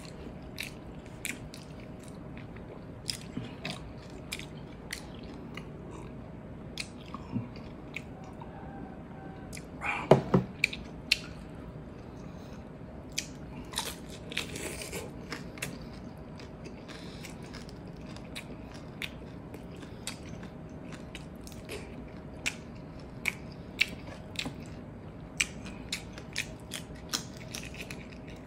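Close-miked mouth sounds of a man eating salted egg shrimp and rice by hand: chewing, crunching and frequent sharp wet smacks of lips and fingers. A short, louder burst of knocks comes about ten seconds in.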